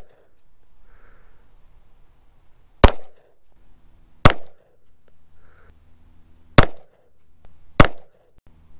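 Glock 26 9mm pistol fired four times at irregular intervals, each shot a sharp crack with a short echo.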